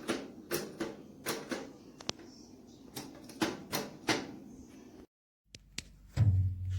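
A run of sharp clicks and knocks, two or three a second, that stops about four seconds in. After a moment of dead silence, a deep, loud hum of music comes in near the end.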